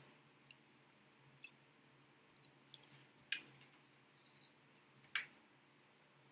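Eating at close range: scattered soft clicks and smacks of chewing, with two sharper clicks a little past three seconds and about five seconds in.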